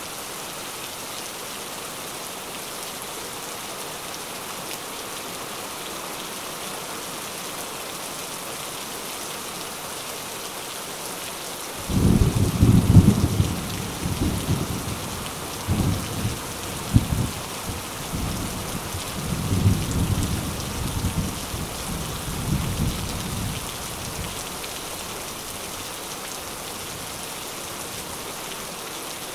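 Steady heavy rain, with a long rolling thunder rumble that breaks in suddenly about twelve seconds in, swells several times and fades out about twelve seconds later.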